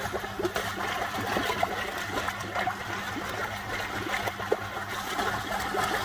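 Water bubbling and trickling in a koi fry tank's moving-bed filter barrel of K1 media, stirred by an air line, with a low steady hum underneath.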